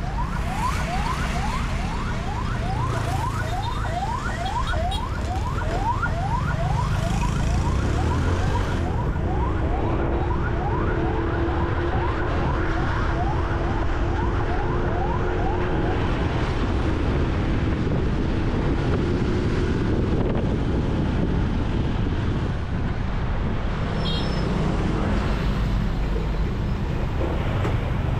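An emergency-vehicle siren yelping, a fast rising sweep repeated about four times a second, over the rumble of jammed expressway traffic. The siren fades out about ten seconds in, leaving engine and tyre noise from the cars and a coach passing close by.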